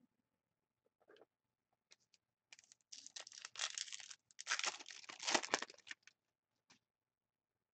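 A 2013-14 Panini Contenders hockey card pack wrapper being torn open and crinkled by hand, in two loud crackling rips a moment apart, with a few light rustles before and after.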